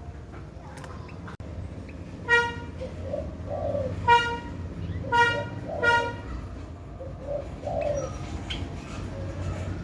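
Doves cooing softly, with four short, nasal, toot-like calls in the middle.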